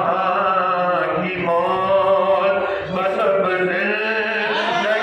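Men singing a devotional zikr chant in praise of Ali, a lead male voice with sustained, wavering melodic lines.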